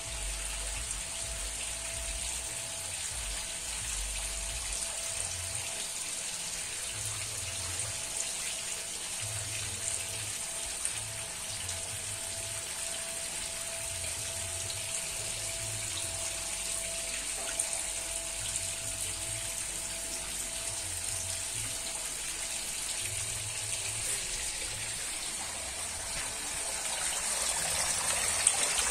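Steady splashing and running water in a densely stocked concrete catfish pond, getting louder near the end as water falls into the pond. A faint steady tone sits under it through the first half.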